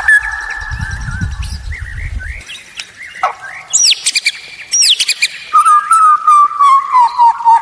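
White-rumped shama (murai batu) singing: a varied run of whistled notes, quick downward-sweeping calls and sharp ticks, then from about halfway a long, slightly wavering low whistle held for about two seconds.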